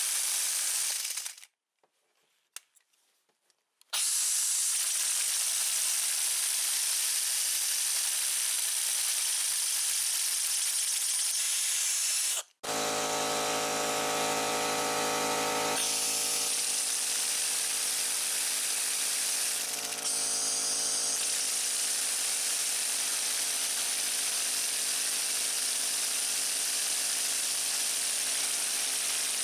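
3D-printed two-rotor rotary air engine driven by compressed air: a loud, steady hiss of air, cut off for a couple of seconds near the start, then from about halfway a steady pitched buzz as the rotors spin.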